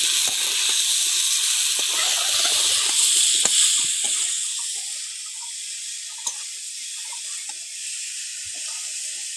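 Cubes of elephant foot yam sizzling in hot oil in a metal kadai as they are stir-fried with spices, a metal spatula scraping and tapping against the pan. The sizzle eases about halfway through.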